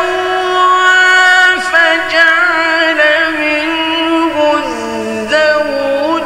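A male Quran reciter chanting in the slow, ornamented mujawwad style: one long drawn-out phrase with wavering turns on the held notes, the pitch stepping down about two-thirds of the way through and climbing again near the end.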